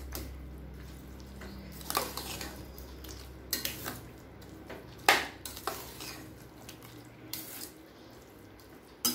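A metal ladle stirring thick cooked rice, dal and vegetables in a metal pressure cooker, knocking and scraping against the pot every second or two.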